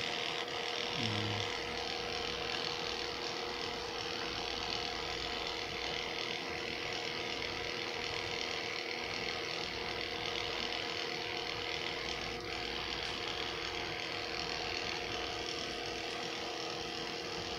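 Electric pet grooming clippers running steadily as they shave a small dog's coat, an even motor hum without a break.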